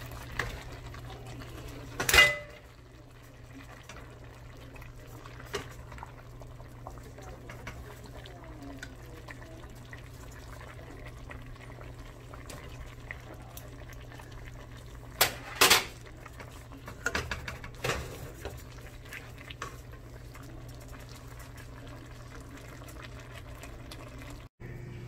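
Cooking utensils clinking against a pot and a plate as smoked turkey legs are lifted out of simmering collard greens: one loud clink about two seconds in, two more around the middle and a few lighter ones after. Underneath is a steady low hum with the quiet bubbling of the pot.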